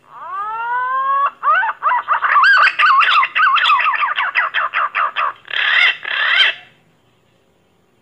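Pink-necked green pigeon song: a long rising whistle, then a quick run of wavering, warbling whistled notes at about five a second, ending in two harsher, buzzier notes near the end.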